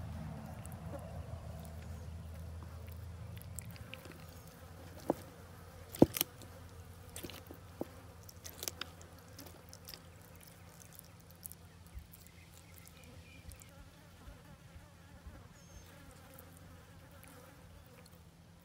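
Flies buzzing, a low drone that is strongest in the first few seconds and then fades, with a few sharp clicks and knocks around the middle, the loudest about six seconds in.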